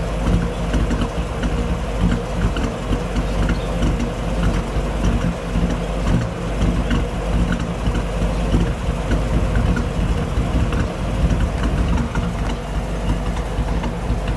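1955 Chevrolet Bel Air's Power Pack V8 idling steadily, heard at its dual exhaust tailpipes, with a quick flutter in the exhaust note. The engine is still warming up and blowing condensation water out of the exhaust.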